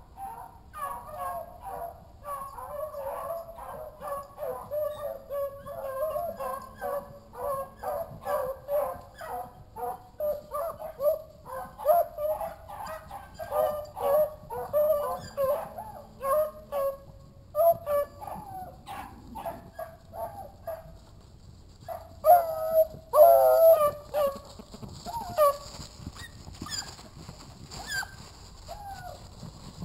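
A pack of hunting hounds baying on a trail, many voices overlapping almost without a break. The cries thin out after about 17 seconds, then a few louder ones come around 22 to 24 seconds.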